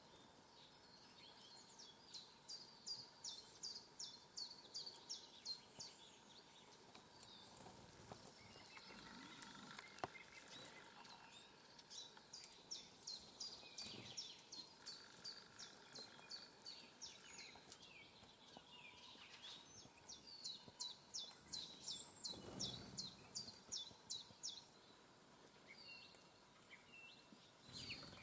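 A small songbird singing three phrases of evenly spaced high, short notes, about eight seconds apart, over faint outdoor background noise.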